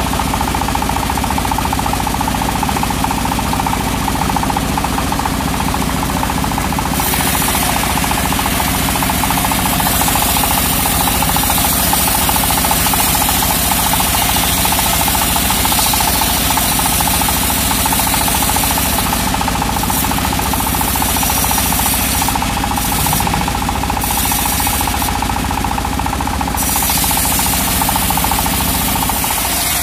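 Home-built bandsaw mill sawing lengthwise through a teak slab: the machine runs steadily with a continuous rumble and a steady whine under the hiss of the blade in the wood, which grows brighter about seven seconds in.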